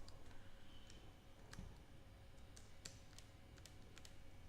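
Faint, irregularly spaced clicks of computer keyboard keys being typed, about ten keystrokes over a low background hum.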